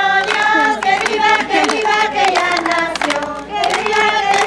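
Voices singing a Spanish Christmas carol (villancico) together, with hand clapping along.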